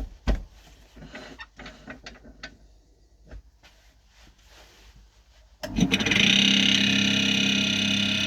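Scattered light knocks and clicks, then about two-thirds of the way through an Axminster AC240WL wood lathe switches on and runs with a steady hum and high whine.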